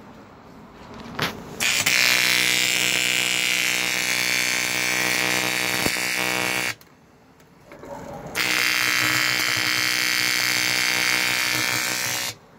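Argon (TIG) welding arc buzzing steadily in two runs of about five and four seconds, with a short pause between.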